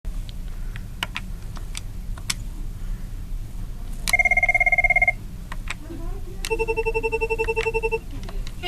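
Cisco IP Phone 7940G ringtones. A few sharp clicks come first. About four seconds in there is a one-second burst of a rapidly warbling electronic ring. Then, from about six and a half seconds, a lower ring pulses rapidly for about a second and a half.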